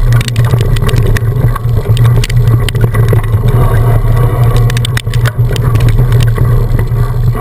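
Heavy wind rumble on a helmet-mounted action-camera microphone while riding a mountain bike, with frequent sharp clicks and rattles from the bike jolting over rough trail.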